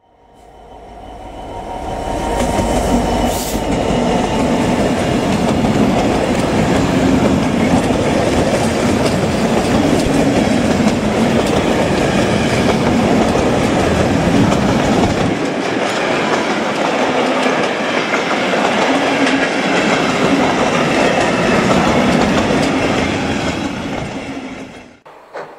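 Diesel-hauled freight train of empty timber wagons passing close by: the sound builds over the first few seconds as the locomotive arrives, then a steady loud rumble and clatter of wagon wheels on the rails. The deepest rumble drops away about halfway through, and the sound cuts off suddenly near the end.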